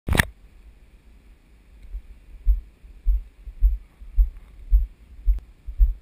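Footsteps of someone walking on asphalt while carrying the camera, heard as dull low thuds about two a second, starting about two and a half seconds in. A sharp click at the very start.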